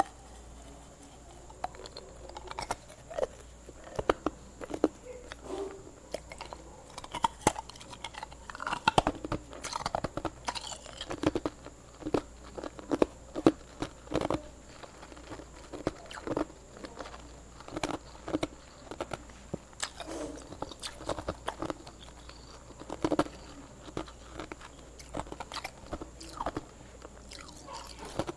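Close-up chewing and crunching of hard ice: a steady run of sharp, irregular cracks and crunches as the ice is bitten and ground between the teeth.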